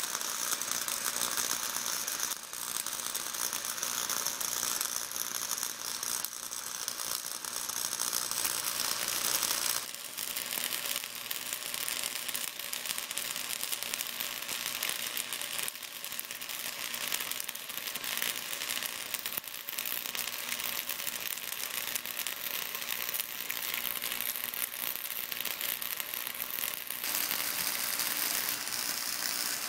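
Flux-core arc welding: the arc crackles and hisses steadily as a bead is run on 1/8-inch steel. Its tone shifts about ten seconds in and again near the end.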